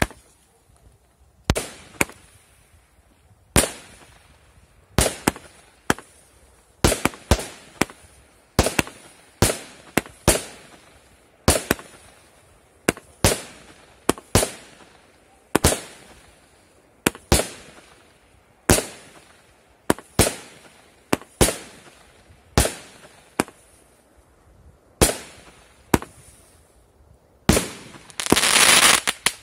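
A 136-shot consumer fireworks cake firing its shots one after another, with a sharp bang every second or so as shells launch and burst. Near the end there is a thick rush of crackling.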